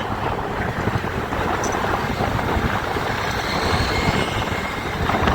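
Steady wind rumble and engine and road noise from a vehicle on the move in road traffic.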